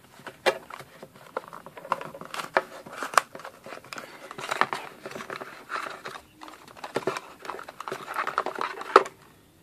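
Handling and opening a small cardboard accessory box: scattered taps and clicks of the box and lid, with rustling and crinkling as a coiled headphone cable is pulled out.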